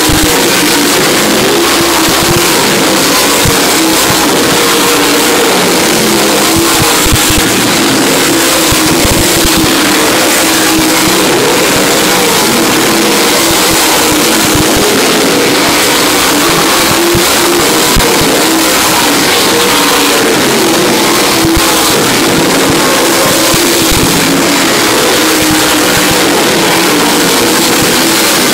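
Dirt late model race cars' V8 engines running hard in a pack around a dirt oval, a loud, unbroken wall of engine noise whose pitch wavers as cars pass and lift for the turns.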